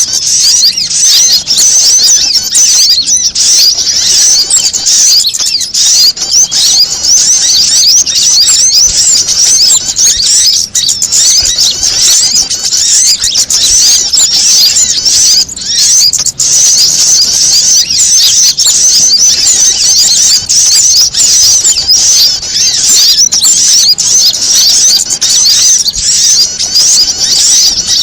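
Bird-lure recording of agitated small birds: a dense, unbroken chatter of many overlapping high-pitched chirps and trills, built from prinia and panicked sunbird calls.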